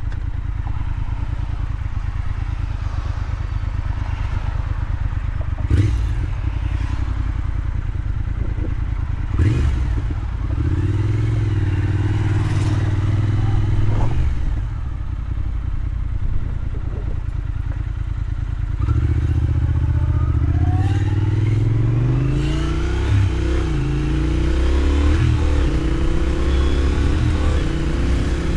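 Triumph Thruxton 1200's parallel-twin engine breathing through a freshly fitted Motone X-pipe, under way on the road. It runs steadily at first, with a few short knocks, then pulls in several rising sweeps of acceleration through the gears in the second half.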